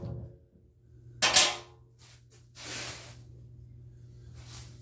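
Hand-tool handling sounds as a battery terminal cleaner is put to a corroded battery post. There is a sharp plastic-and-metal clack about a second in, then two short scraping rubs.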